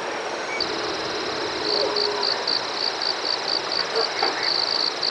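Insects calling: a steady high-pitched trill starts about half a second in, and a pulsing call of roughly four beats a second sounds over it.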